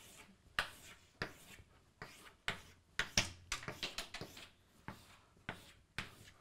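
Chalk striking and scraping across a chalkboard as straight lines are drawn in quick succession: about a dozen short strokes, roughly two a second, a few a little longer in the middle.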